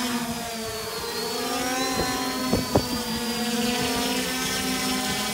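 Electric motors and propellers of a homemade X-UAV Talon VTOL drone running at lift power as it takes off and climbs: a steady buzzing whine made of several propeller tones, with a thin high whine on top. Two sharp clicks about two and a half seconds in.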